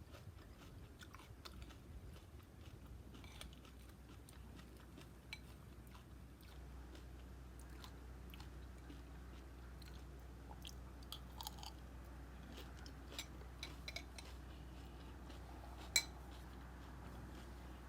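A person chewing crunchy cereal close to the microphone: faint, irregular crunching and small mouth clicks, with one sharper click near the end over a low steady hum.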